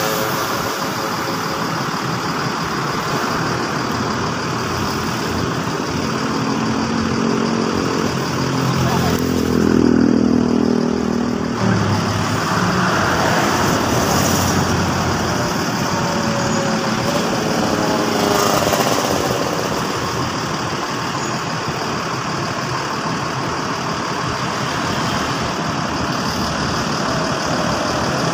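Diesel coach engines running in a bus depot, one coach pulling out with its engine climbing in pitch and loudest about ten seconds in before easing off, over other buses idling. A few brief hisses come in the second half.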